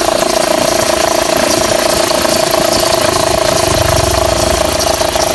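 Fiat Freemont 2.4 four-cylinder engine idling with the A/C compressor engaged, and the accessory belt singing with a steady high-pitched tone. The belt is a too-long 6PK 2575 in place of the correct 2563/2565, and it slips under the compressor's load, a noise that had been mistaken for a failing A/C compressor.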